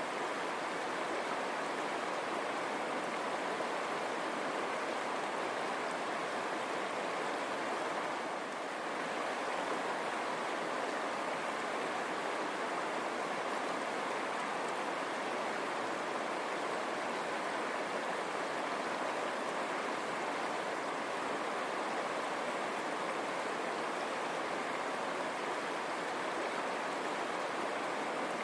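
River water running steadily over stones, a continuous even rushing.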